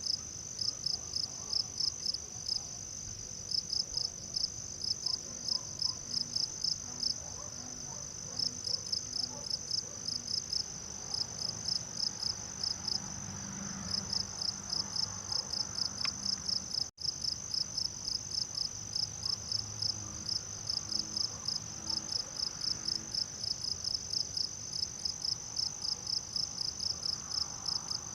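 Insect chorus: a steady high trill with rhythmic high chirps on top, coming in runs of about four or five pulses a second with short breaks. There is a momentary dropout about two-thirds of the way through.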